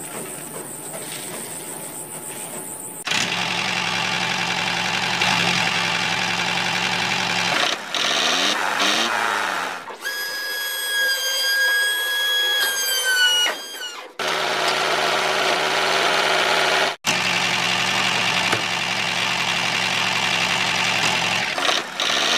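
Small electric motor of a homemade model tractor running with a steady hum. Partway through, a higher-pitched motor whine takes over for a few seconds while the trolley tips its load, and its pitch sags just before it stops.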